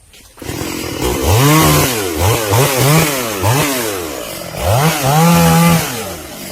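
Two-stroke chainsaw engine being revved in a string of quick blips, its pitch rising and falling about six times, then held at high revs for about a second before dropping back near the end.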